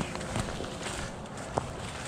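Footsteps wading through dry standing soybean plants: a steady rustle of stalks and pods, with scattered small crackles and one sharper snap about a second and a half in.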